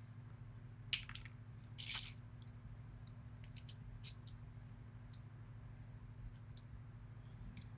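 Faint, scattered small metal clicks and a brief light scrape as pins and a pick or tweezers are handled while a pin-tumbler lock is taken apart. There is a steady low hum underneath.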